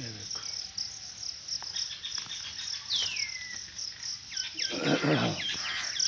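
A steady, high insect chorus of trilling chirps, with a bird giving a call that glides downward about three seconds in. Near the end, quick bird chirps come over a louder muffled rustle.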